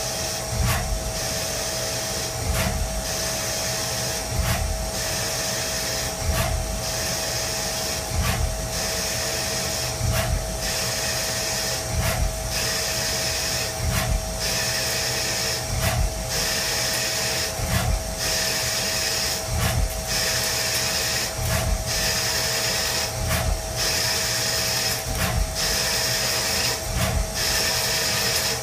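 CNC lathe thread-cutting on a spinning metal bar with a single-point threading tool: a steady spindle tone under a cutting sound that comes and goes about every two seconds, one threading pass after another.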